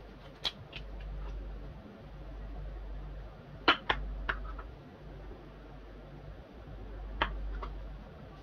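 Ceramic plates set down on a granite countertop: sharp clinks about half a second in, a loud pair near four seconds in, and another near seven seconds in, over a steady low hum.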